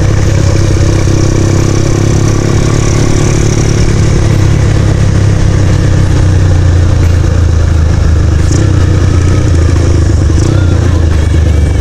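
Motorcycle engine and exhaust running loud and steady while riding at an even cruising speed.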